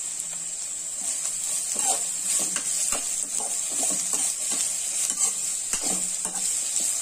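Sliced onions and green chillies sizzling in hot oil in a kadai while being sautéed. A metal slotted spatula stirs and scrapes them in a run of quick strokes from about a second in.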